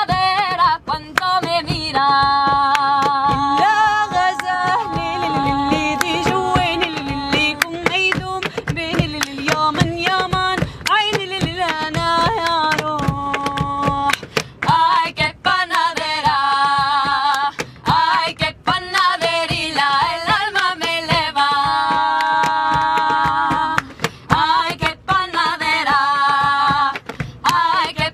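Female voices singing a melody over rhythmic hand claps from a two-person clapping game, with some long held notes.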